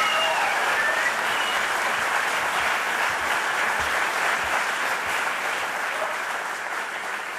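Audience applauding, gradually dying down.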